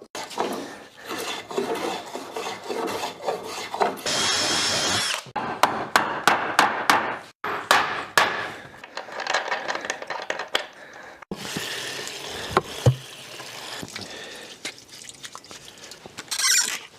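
Hand-tool woodworking on a sawdust-fuel project: wood rubbing and scraping, with a brief steady squeal about four seconds in and a run of sharp clicks and knocks soon after.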